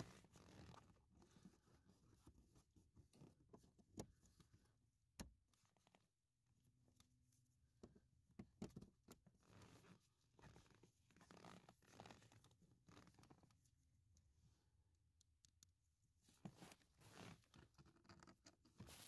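Faint, scattered clicks and scrapes of plastic push clips and the lower dash cover panel being handled and pressed into place, over near silence.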